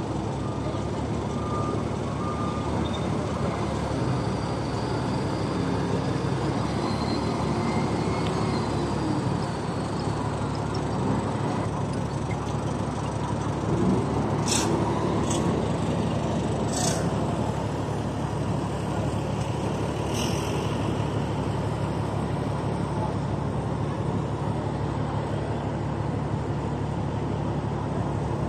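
Steady drone of heavy diesel machinery with a low hum, from a container reach stacker working the yard. Several short sharp sounds cut through it between about halfway and two-thirds of the way in.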